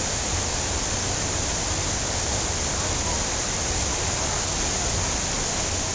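Steady rush of splashing fountain water.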